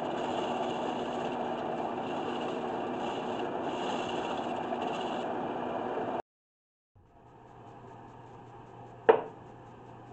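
Wood lathe running steadily with a small turned jar spinning on it, cutting off abruptly about six seconds in. After a short gap comes a much quieter background with a faint low hum and one sharp knock near the end.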